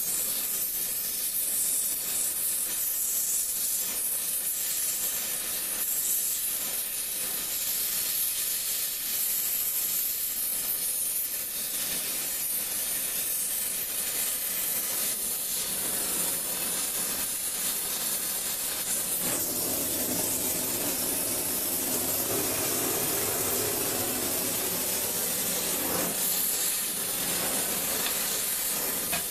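Oxy-acetylene torch with a rosebud heating tip, its flame hissing steadily. About two-thirds of the way through, a lower, rougher sound joins the hiss.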